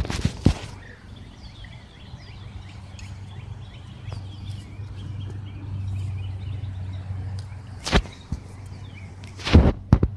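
Footsteps brushing and crunching through dry grass and leaf litter, with a few louder rustles and knocks at the start and twice near the end. Between them, small birds chirp faintly over a steady low hum.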